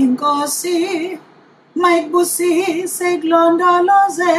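A woman singing a blessing solo in isiZulu, holding notes with a marked vibrato. Two phrases, with a short break about a second in.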